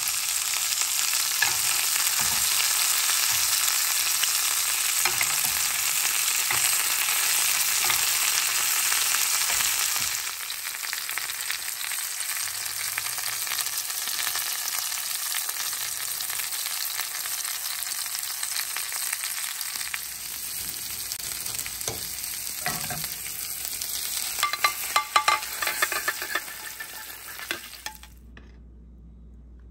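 Butter sizzling and frying in a pan around a lobster tail and a filet mignon, a steady dense crackle. It drops a little about ten seconds in, a few sharp clicks come near the end, then the sizzle cuts off suddenly.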